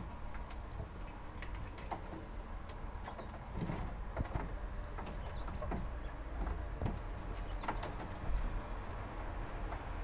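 Domestic quails pecking at a green onion stalk held through wire cage bars: irregular, sharp pecking clicks with the birds shuffling about in the cage.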